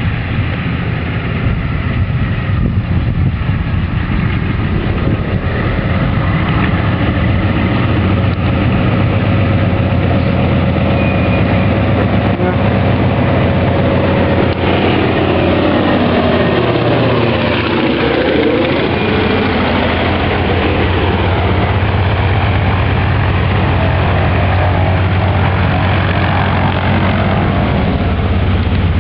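Antonov An-2's nine-cylinder radial engine running steadily at taxi power as the biplane rolls across grass past close by. Near the middle the tone sweeps down and back up as the aircraft passes closest.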